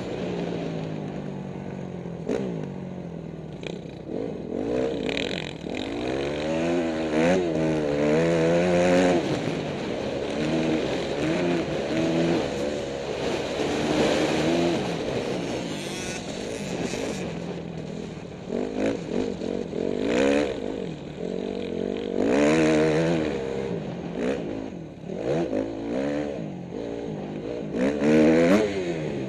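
Dirt bike engine heard from on board, rising and falling in pitch again and again as the throttle is opened and closed, with occasional knocks and rattles.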